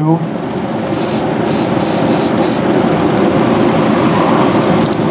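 Aerosol carburetor cleaner sprayed in four short spritzes, flushing out the fuel passages of a carburetor. Underneath is a steady low rushing noise with a faint hum.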